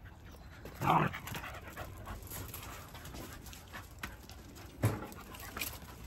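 Dogs playing, with a loud bark about a second in and a shorter, sharper one near five seconds.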